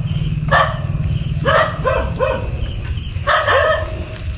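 A dog barking repeatedly, about six short barks in three bunches, over a steady high trill of insects.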